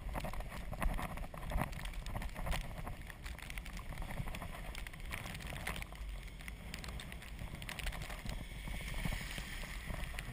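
Azub recumbent trike rolling through packed snow and slush: a steady crunching hiss from the tyres, with many small clicks and rattles, over a low rumble of wind on the microphone.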